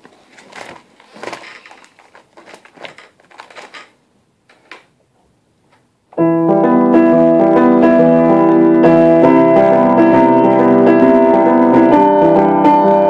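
Scattered faint clicks and knocks, then piano music starts suddenly about six seconds in, loud, with many notes held together.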